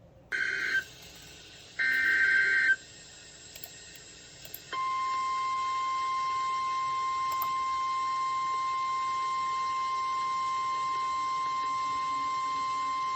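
Emergency Alert System activation: two short bursts of buzzy digital header tones, then, about two seconds later, a single steady high alert tone that holds, the attention signal that comes before a weather warning is read.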